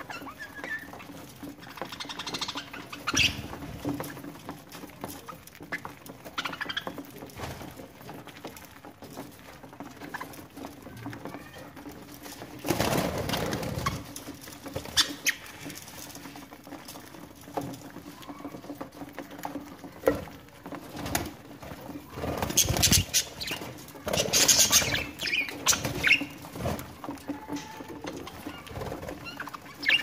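Budgerigars pecking and scuffling at seed and chopped greens, a patter of small irregular clicks with occasional short chirps. Louder rustling bursts come about halfway through and again twice a few seconds before the end.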